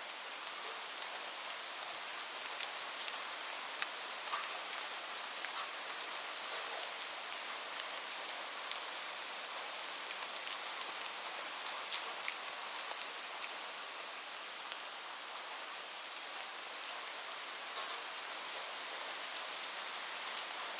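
Steady rain falling, a continuous hiss with scattered individual drops ticking on a surface.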